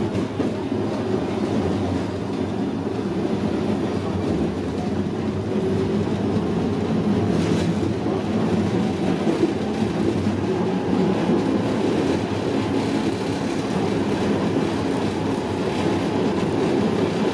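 Articulated tram running along, heard from inside the car: a steady rumble of the wheels on the rails.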